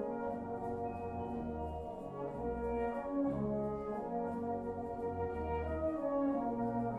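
Background music: a slow brass-led piece of held notes, horn-like, over low bass notes that change every second or so.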